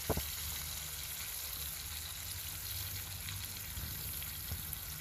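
Steak sizzling in a frying pan, a steady hiss, with a light knock just after the start.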